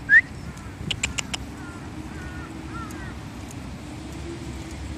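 Birds chirping outdoors: one short, sharp rising chirp just after the start, then faint wavering chirps, with a few sharp clicks about a second in, over a steady low hum.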